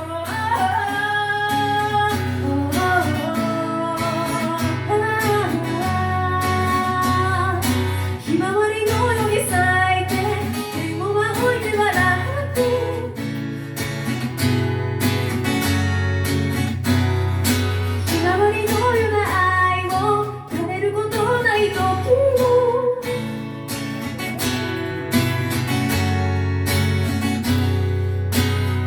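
Live acoustic song: guitar strumming and picking an accompaniment under a singing voice carrying a gliding melody without clear words.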